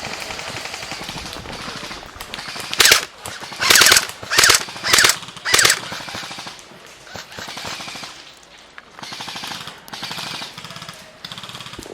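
Airsoft M60 machine gun, an electric-powered replica, firing on full auto: a fast mechanical rattle of shots, with about five loud short bursts between about three and six seconds in.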